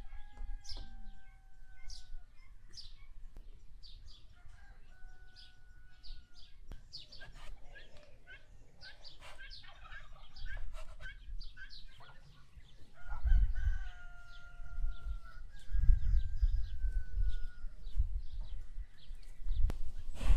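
A rooster crowing several times, each crow a long held call that falls slightly at the end. Small birds chirp in short high notes throughout, and bursts of low rumble come in the latter part.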